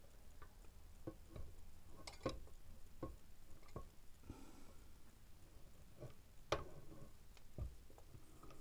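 Scattered light clicks and knocks from the crankshaft and conrod of a stripped GX200-clone single-cylinder engine being turned by hand, with its parts handled on the bench. The two sharpest knocks come about two seconds in and about six and a half seconds in.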